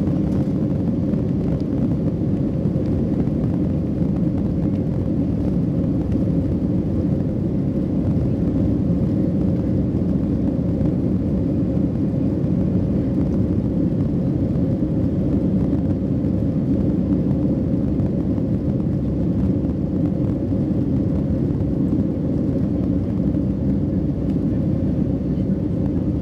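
Boeing 757's twin Pratt & Whitney PW2037 turbofans at takeoff thrust, heard inside the cabin over the wing during lift-off and the initial climb: a loud, steady, deep rumble with a constant hum on top.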